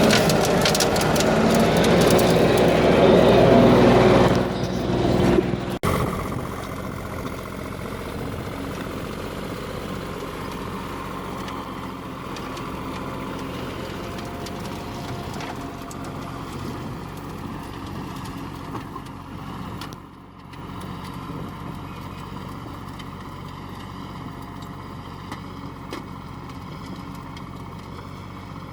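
Tractor engine running steadily as it pulls a ridge-forming plastic-mulch laying machine. A louder, rougher stretch in the first few seconds cuts off abruptly about six seconds in, leaving a steadier, quieter engine hum.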